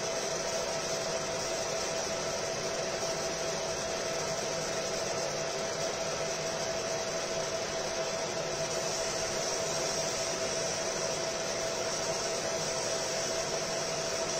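Fiber laser marking machine running: a steady whirring hiss with one steady mid-pitched tone.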